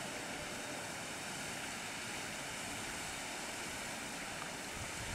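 ICF Medha electric multiple unit train running along the track, giving a steady, even running noise.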